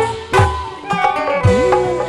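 Sundanese kendang drums playing a busy dance rhythm, some low strokes sliding down in pitch, over held keyboard melody notes.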